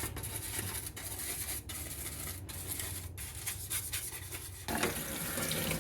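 Circuit board being sprayed with cleaner and worked over: a steady, rough hiss over a low hum, growing louder about three-quarters of the way through.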